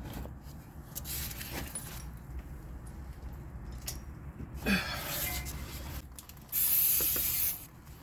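Aerosol spray can hissing in a burst of about a second near the end, with a shorter spray a little past the middle: solvent being sprayed onto a seized suspension fastener to loosen it before the impact gun goes on.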